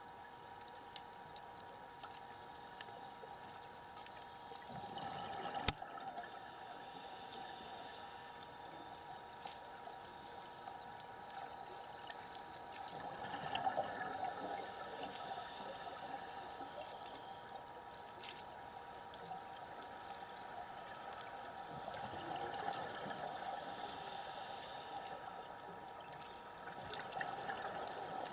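Scuba regulator breathing heard underwater: a bubbling exhalation about every nine seconds, each with a hiss. Underneath is a faint steady tone, and there are a few sharp clicks.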